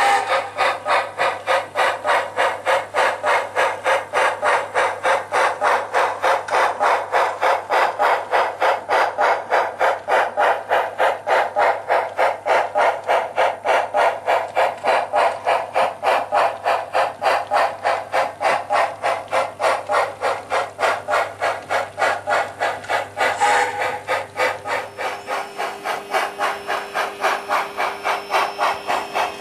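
HO-scale 0-8-0 steam locomotive model's sound system playing a steady exhaust chuff, about three chuffs a second, over a low hum. The hum stops near the end and the chuffing drops a little in level.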